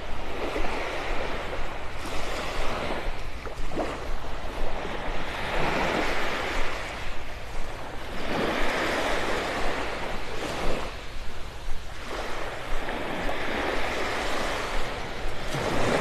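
Small Gulf of Mexico waves washing onto a sandy beach, a hiss that swells and fades every few seconds, over a steady low rumble.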